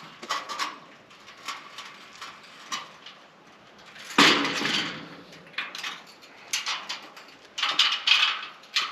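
Things being handled and set down: irregular knocks and clatters, with a louder rattling clatter about four seconds in and a quick run of knocks near the end.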